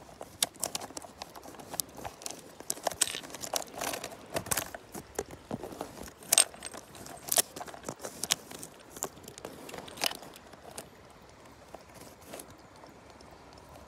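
Irregular clicks and clatters of hard objects knocking together, dense at first and thinning out over the last few seconds.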